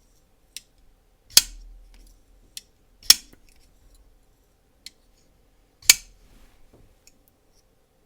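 Holt Haptic folding knife being flipped open and shut again and again: three loud snaps of the blade locking open, each ringing briefly like a "bink or a bonk", with quieter clicks of the blade closing in between. The pivot was just cleaned and reassembled and is being flipped to wear in.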